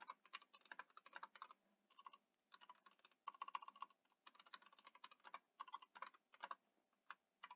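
Faint typing on a computer keyboard: irregular runs of quick keystrokes with short pauses between words.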